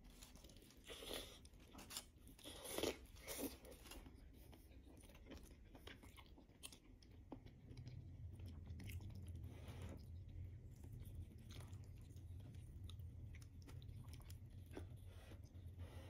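Close-up mouth sounds of a person biting and chewing baked chicken: soft wet smacks and clicks, loudest in a cluster about one to four seconds in, then fainter. A low steady hum sets in about halfway.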